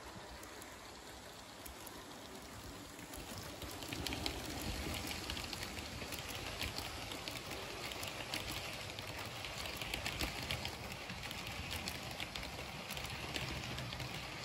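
Model train of red-and-cream express coaches rolling along the track: a steady rattling hiss with many small clicks of wheels over rail joints, getting louder about four seconds in as the coaches pass close.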